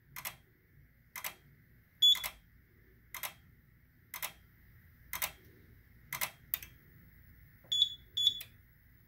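Keypad of a Simplex 4006 fire alarm control panel giving short high beeps as keys are pressed to disable a smoke detector: one beep about two seconds in and two more near the end. Under them runs a sharp click about once a second that stops about two-thirds of the way through.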